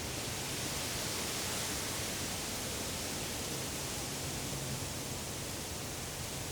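Wind rustling through the leaves of deciduous trees: a steady hiss of leaves that swells slightly about a second in.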